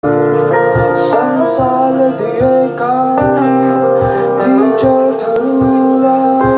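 Live acoustic band music: acoustic guitars playing over a cajon beat, its low thumps about twice a second.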